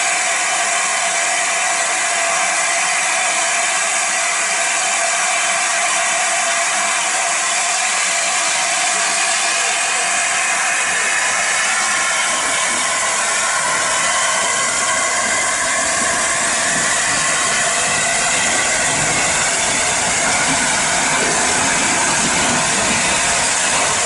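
Steam hissing steadily from the LNER A4 Pacific steam locomotive 60007 Sir Nigel Gresley. A lower rumble joins the hiss about ten seconds in.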